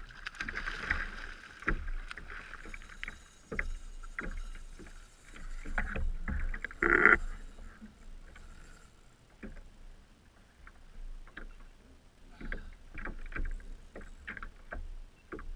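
Water slapping against a fishing kayak's hull, with scattered clicks and knocks from the rod and reel as a fish is played and reeled in. One louder noise about seven seconds in.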